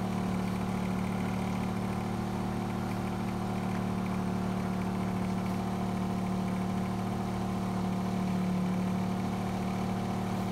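Boat engine idling steadily, an even pitched drone that doesn't change.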